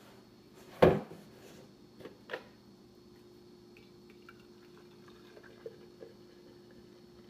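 A sharp knock about a second in and two lighter clicks, then green juice poured from a juicer's jug into a glass mason jar, a faint pouring and trickling into the glass with a few light ticks.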